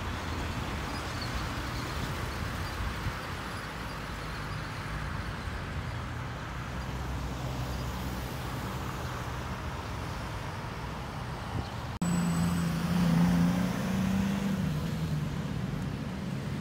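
Road traffic: cars passing with tyre and engine noise. About twelve seconds in, the sound jumps abruptly to a louder, nearer vehicle engine running with a low hum that wavers in pitch.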